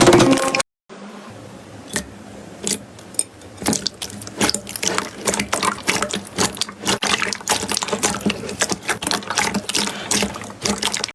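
Slime being squeezed and pressed by hand, making dense, irregular wet clicks, pops and squelches.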